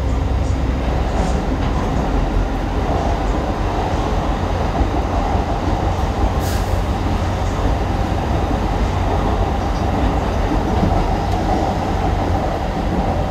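Kawasaki-built light rail train running along the track: a steady rumble of wheels on rail with a steady whine that grows a few seconds in, and one brief sharp tick about halfway.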